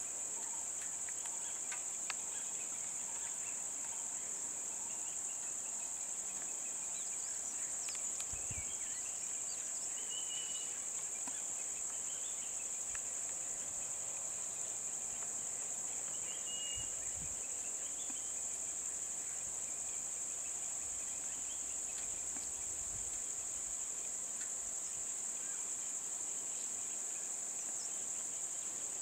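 Steady, high-pitched drone of an insect chorus, with a few faint bird chirps midway.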